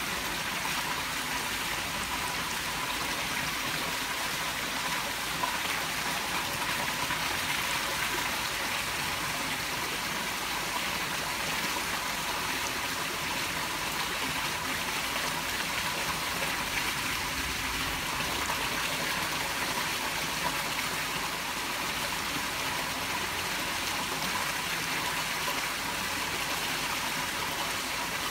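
Steady rush of running water in a fish-fry tank, even and unbroken, with a faint steady tone underneath.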